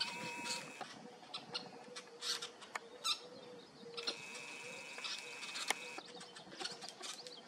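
Kingbirds and other small songbirds giving rapid, sharp chips and twitters as they mob a perched red-tailed hawk. A steady high note is held for about two seconds midway.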